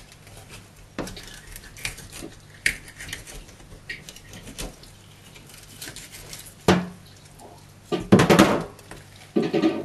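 Kitchen knife working on a plastic cutting board as a whole fish is slit open and gutted: scattered light taps and scrapes, with a louder burst of knocking and clatter about eight seconds in and again just before the end.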